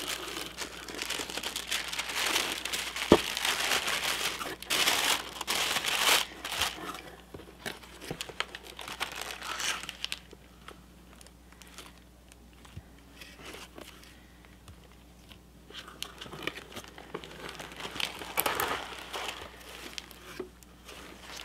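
Tissue paper rustling and crinkling as it is unfolded and pulled back from a box, with a single sharp tap about three seconds in. It goes quieter for several seconds midway, then packaging rustles again near the end.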